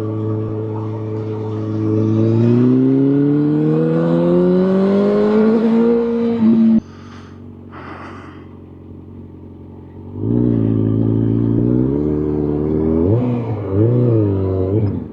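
Motorcycle engine pulling through a gear, its pitch climbing steadily for a few seconds before cutting off suddenly. After a few quieter seconds the engine is back, rising and then revving up and down several times near the end.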